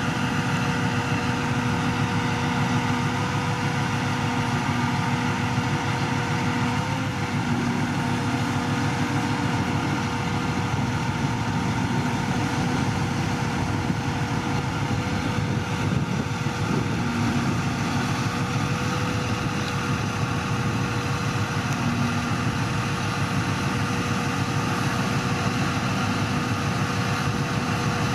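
Crane truck's diesel engine running steadily, with a constant whine over the engine noise.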